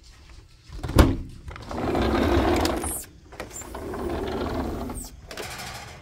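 A sharp click, then two stretches of rolling rumble: a sliding glass patio door unlatched and run along its track.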